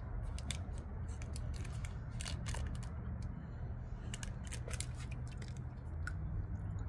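Irregular sharp crinkles and clicks of a wrapper being peeled off an individually wrapped bite-size Dubai chocolate, over a low steady rumble.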